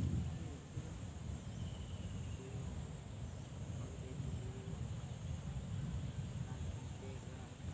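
Steady high-pitched drone of insects, such as crickets or cicadas, with a low rumble underneath.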